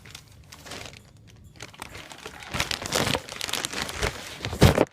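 Packaging crinkling and rustling as a bike frame is pulled out of its box and wrapping, busier in the second half, with a louder thump near the end.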